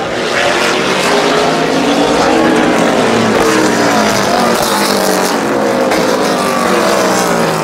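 NASCAR stock cars' V8 engines running past in a wet race, several at once, their engine notes overlapping and rising and falling in pitch as the cars go through the corner.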